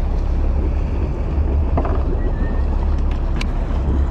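Charter fishing boat's steady low rumble, with a few light clicks scattered through it.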